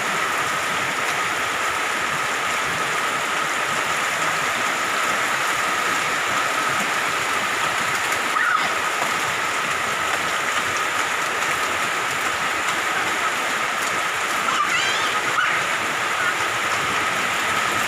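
Steady heavy rain and running rainwater making an even, unbroken hiss, with a faint steady high whine underneath.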